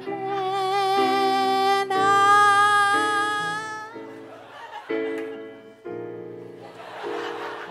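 A woman sings a long held note with vibrato into a microphone over electric keyboard chords; the voice stops about four seconds in and the keyboard carries on alone. Near the end there is a brief rush of audience noise.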